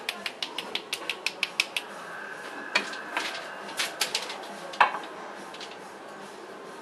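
Quick light taps of a paint-loaded brush, about four to five a second, sprinkling drops of colour onto the marbling size. After about two seconds the taps thin out to a few scattered clicks, with a sharper knock near the five-second mark.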